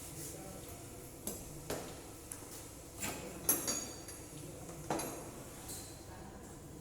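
Scattered metallic clinks and knocks of hand tools and engine parts being handled during work on a four-stroke motorcycle cylinder head, about five in all, one near the middle ringing briefly.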